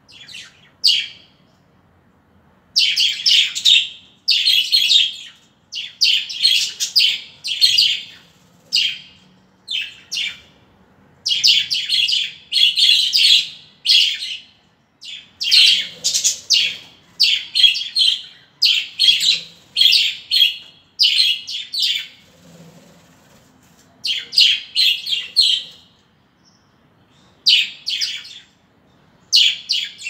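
A flock of budgerigars chattering and chirping in repeated high-pitched bursts of about a second each, with short pauses between.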